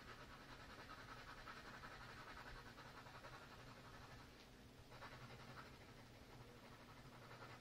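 Faint scratching of a graphite pencil drawing quick strokes on paper, with a short burst of strokes about five seconds in.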